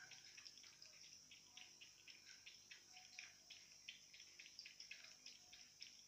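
Cat lapping water from a plastic bowl: faint, quick wet laps, about four or five a second.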